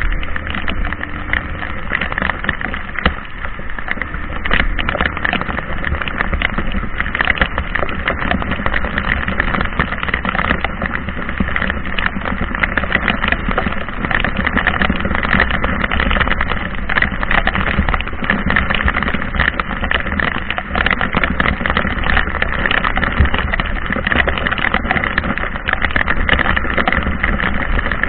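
Heavy rain falling steadily, a dense patter over a constant low rumble.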